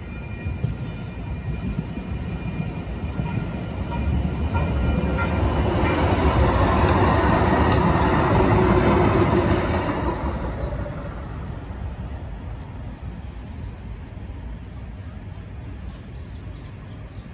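A two-car CAF light-rail train passes over the crossing, loudest in the middle and fading after about eleven seconds. Before it arrives, a crossing-signal bell rings steadily and drops out about five seconds in.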